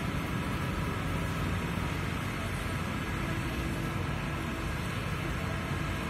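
Amphibious pontoon excavator's diesel engine running steadily.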